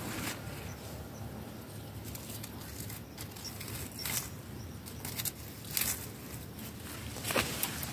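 Scattered rustles and crackles of dry leaves and twigs, a few sharper ones about four, five to six and seven seconds in, over a steady low rumble.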